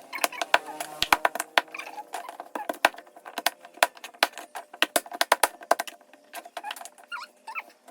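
A knife chopping on a cutting board: quick, irregular knocks, several a second, thinning out about six seconds in.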